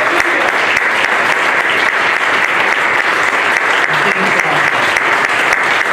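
Congregation applauding: many people clapping steadily.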